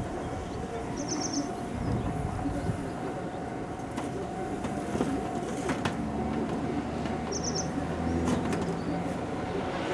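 Japanese level-crossing alarm ringing with its repeated electronic tone while a JR Shikoku 1000-series diesel railcar approaches, its low engine rumble growing from about six seconds in. A small bird gives two short high chirping trills, near the start and again near the end.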